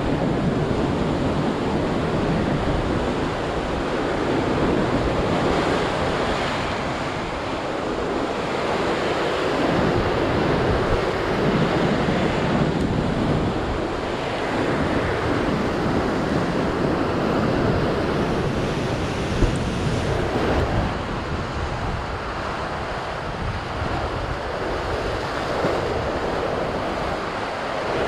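Ocean surf breaking and washing over lava rocks, swelling and easing with each wave, with wind rumbling on the microphone.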